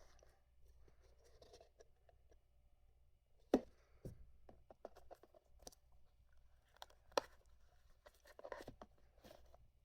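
Perfume box and packaging being handled: scattered light knocks and clicks, sharpest about three and a half seconds in and again near seven seconds, with faint rustling between.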